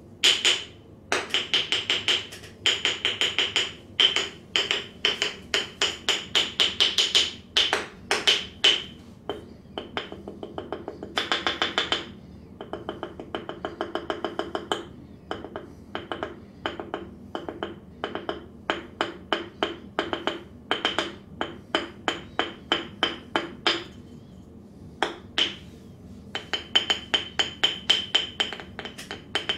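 Rapid percussive hand strikes of a hard barber massage on the body. They come in quick runs with short pauses, each strike a sharp clap of the same pitch.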